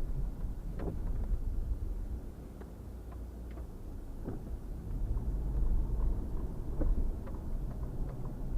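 Car driving through deep snow: a steady low rumble of engine and tyres that dips for a couple of seconds and then swells again, with a few faint clicks.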